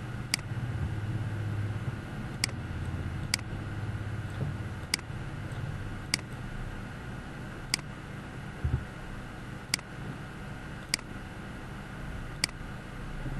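Computer mouse clicking, single sharp clicks about every one to two seconds, over a steady low hum of room and computer-fan noise.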